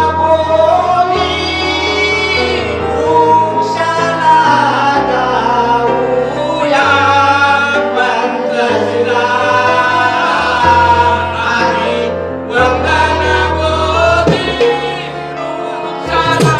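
A Bhim geet sung by a voice over harmonium accompaniment, with held, wavering vocal lines above sustained reed chords that change every couple of seconds.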